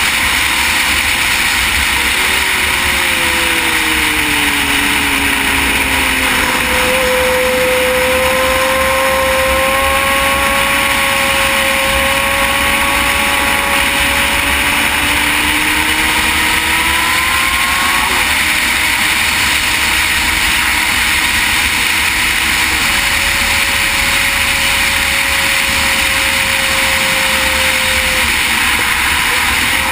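Motorcycle riding at road speed: steady wind rush buffeting the mounted camera's microphone, with the engine note faint beneath it, falling a few seconds in, then climbing slowly and dropping again about eighteen seconds in.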